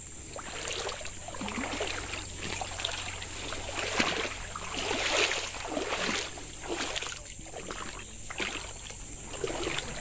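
Footsteps wading through a shallow stream, water sloshing and splashing in irregular surges about once a second, with a sharp knock about four seconds in. A steady high insect drone runs underneath.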